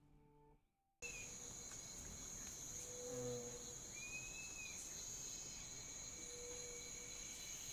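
Night-time nature ambience of insects trilling steadily, starting abruptly about a second in, with a short rising-and-falling call near the middle.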